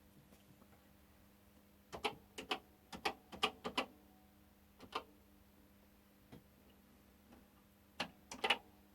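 Commodore CBM 8050 floppy disk drive formatting a disk: its read/write head clicks in irregular groups over a faint steady hum, with a quick run of clicks about two seconds in and another near the end.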